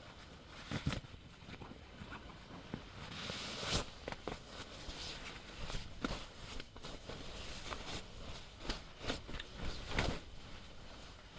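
Irregular rustling and knocking of someone moving about and handling gear inside a small tent, with a longer hissing rustle about three seconds in.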